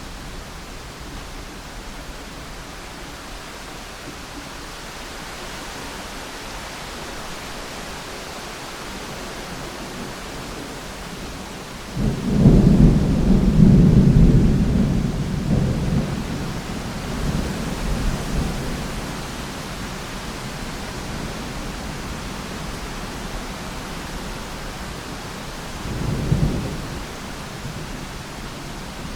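Steady rain hiss with distant thunder: a loud low rumble that starts suddenly about twelve seconds in and rolls away over several seconds, then a shorter, fainter rumble near the end.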